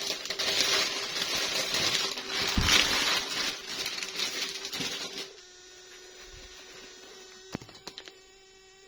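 Packaging being unwrapped by hand, rustling and crinkling for about five seconds. It then goes quiet apart from a few small clicks near the end.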